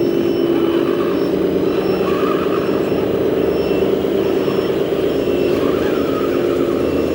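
Diesel truck engine sound from RC construction models' sound modules, running steadily, with a faint beep repeating a little more than once a second.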